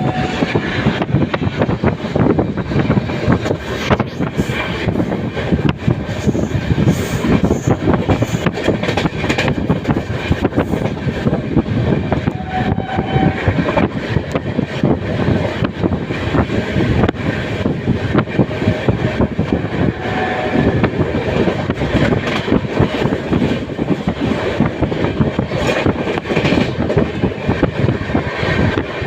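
Indian Railways LHB coach running at speed, its wheels making a steady, dense rattling clatter over the track. A few short faint tones sound above it, one at the start, one about 12 seconds in and one about 20 seconds in.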